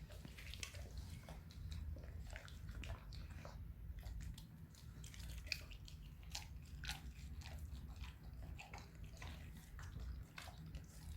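Dog eating, with irregular small wet clicks and smacks of chewing and licking.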